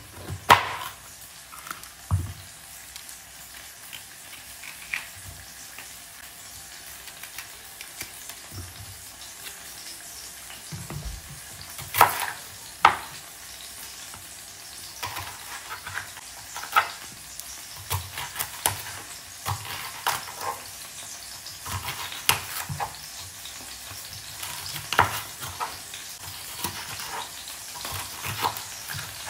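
Potato salad ingredients being stirred and mixed in a bowl with a spoon: a steady soft hiss with irregular knocks and clinks of the spoon against the bowl.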